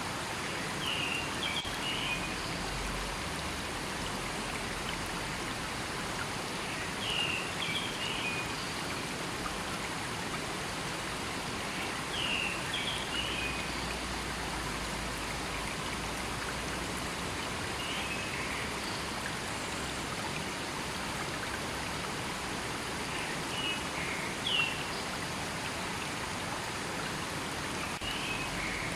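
A river flowing steadily, with a short high bird call repeating about every five or six seconds.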